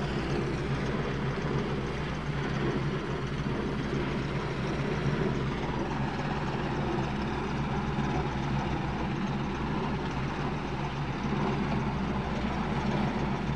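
Steady drone of a hovering RCAF CH-149 Cormorant search-and-rescue helicopter overhead: its rotors and three turbine engines running without a break.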